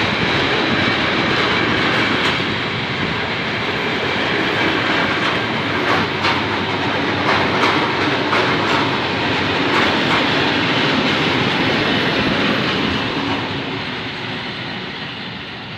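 Freight train wagons rolling past on the line, a steady rail noise with scattered clicks of wheels over the rail joints, fading over the last few seconds as the end of the train goes by.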